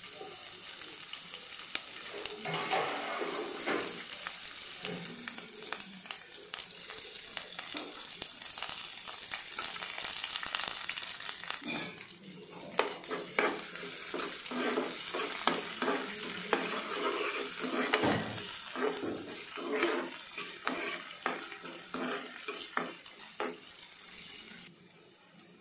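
Chopped green chillies, onion and curry leaves sizzling in hot oil in a nonstick frying pan. Later a slotted metal spatula stirs them, clicking and scraping against the pan.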